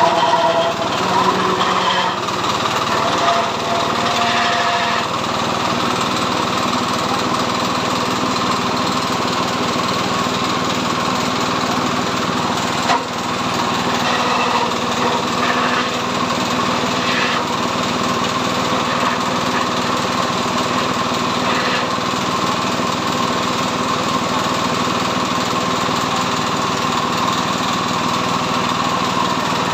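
Small engine running steadily, driving the spinning stripping drum of an abaca decorticating machine. The pitch wavers a few times in the first five seconds, and there is a single sharp knock about 13 seconds in.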